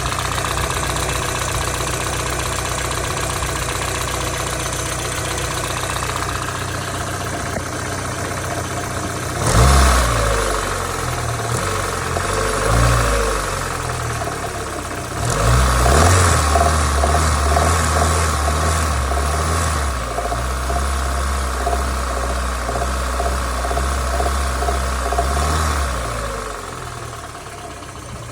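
Car engine at full operating temperature, idling and then revved: a brief blip about ten seconds in, then held at raised revs for about ten seconds before dropping back to idle, with a knock that shows up once the engine is warm.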